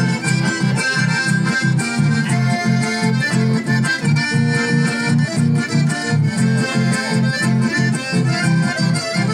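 Live accordion-led folk dance music played over PA speakers, with accordion melody over a steady, quick bass beat.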